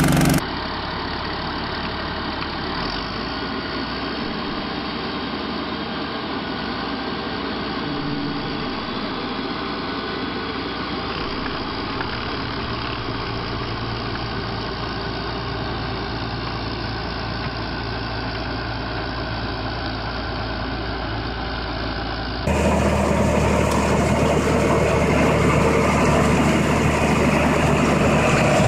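Small tractor engine running steadily as a boat-type paddy tractor ploughs through a flooded rice field. About three quarters of the way through, the sound cuts suddenly to the louder engine of a tracked tractor working a rotary tiller.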